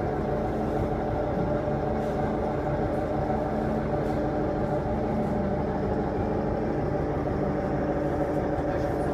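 Submarine's engine running with a steady drone of several low tones.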